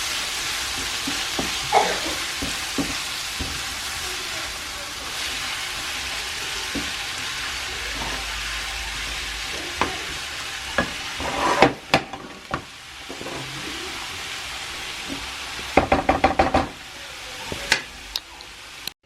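Onions sizzling as they fry in a pan, with a utensil stirring and knocking against the pan. About twelve seconds in the sizzling drops away, leaving scattered knocks and a quick run of clattering strikes near the end.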